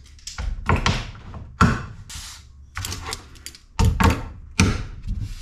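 Irregular knocks, clatter and short scrapes of wood and metal as a thin wooden template is shifted into place on a mahogany bulkhead on the workbench and a metal locking C-clamp is set on its edge to hold it.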